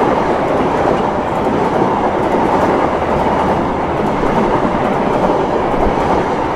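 Indonesian KAI passenger coaches passing close by at speed: a loud, steady rush of wheels on rails with faint wheel clacks over the rail joints.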